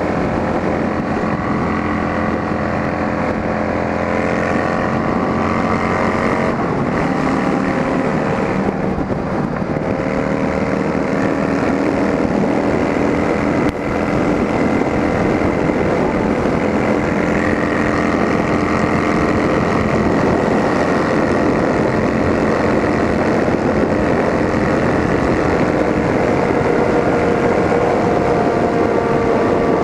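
Motorcycle engines running on straight-through exhausts, a Yamaha Drag Star V-twin and a Fazer 600 inline-four, with a steady note that drifts slowly in pitch as the bikes ride along.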